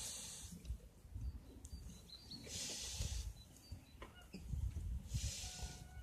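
Outdoor rustling: three bursts of hissing swish over a low uneven rumble, with a few faint short bird chirps in between.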